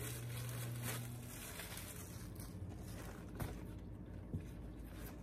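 Plastic wrapping crinkling and rustling as a wrapped bag in its fabric dust cover is handled and unwrapped, with a couple of faint knocks later on. A low steady hum runs through the first second.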